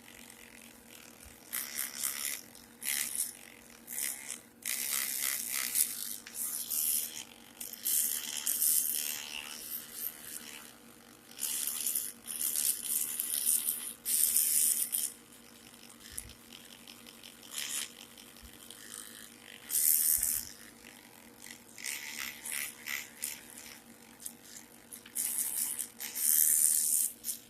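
Aerosol rust-remover spray hissing in about a dozen short bursts of varying length onto a rusty antique sewing machine.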